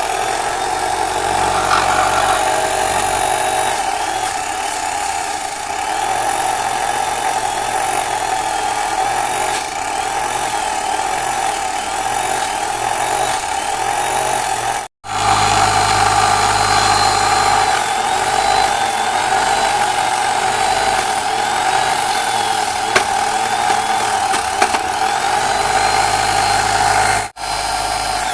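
Small electric motor running steadily with a constant whine, cutting out briefly about halfway through and again near the end.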